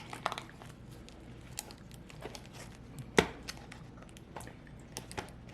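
Packaging being handled: scattered rustles and light clicks, with one sharper click about three seconds in.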